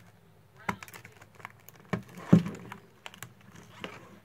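Cardboard retail box being handled and pried open by hand: scattered irregular taps and clicks of the cardboard, the loudest a little past two seconds in.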